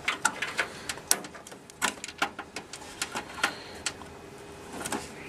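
Irregular light clicks and taps of a RAM stick being handled in a motherboard slot, the slot's plastic retaining clips snapping shut on it.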